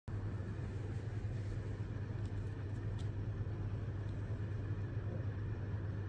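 A steady low hum and rumble of background noise, with two faint clicks a little past two and three seconds in.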